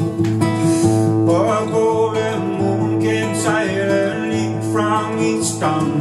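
A man singing a slow song, accompanying himself on acoustic guitar; the voice comes in about a second in over the steady guitar.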